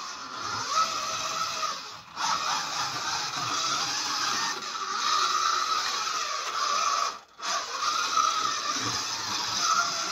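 Scalextric slot car running on plastic track: the electric motor's whine rising and falling with speed over the rattle of the car on the track, dropping away briefly twice.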